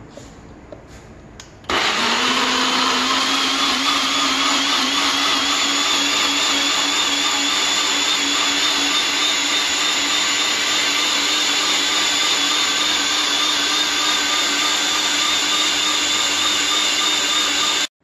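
NutriBullet personal blender motor running steadily, grinding chopped tomatoes to a purée. It starts abruptly about two seconds in, its pitch rises a little over the first second as it comes up to speed, and it stops suddenly near the end.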